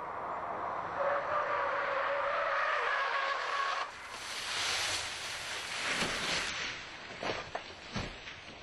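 A car's tyres screeching in a steady squeal as it slides sideways, then a loud rushing skid as it runs off the tarmac onto the grass, followed by several sharp thuds as it bounces across the verge.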